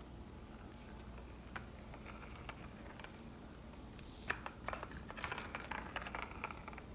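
Plastic cat-toy ball track clicking and rattling as a cat bites at it, trying to get the ball out. There are a few light clicks, then a quick run of clicks and rattles in the second half.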